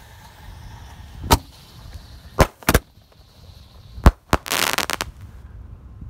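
A rack of mini 1-inch artillery shells on a chained fuse, firing off in sequence. There is a single sharp bang, then two quick pairs of bangs, then a rapid crackling burst near the end.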